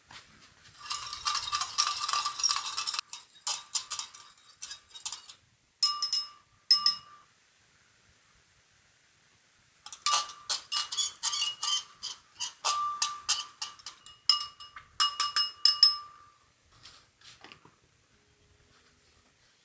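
Metal kitchenware clattering and clinking, with sharp ringing strikes, in two spells of a few seconds each with a pause between.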